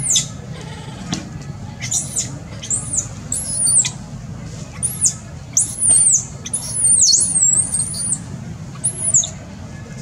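Baby macaque crying: a string of about ten shrill, high-pitched screeches, each rising and then falling, some short and some drawn out.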